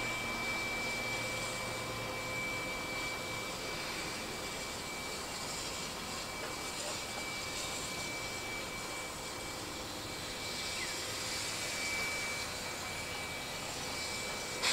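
Steam locomotive 5917, a NSW 59 class 2-8-2, standing and simmering: a steady hiss and hum with a thin, steady high whine over it.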